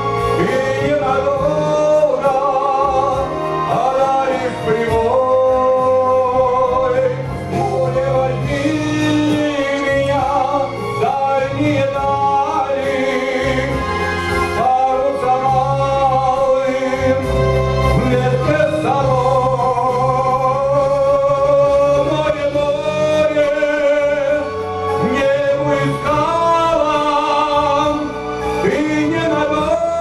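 Older man singing a song into a handheld microphone with vibrato on held notes, over instrumental accompaniment with a steady bass line.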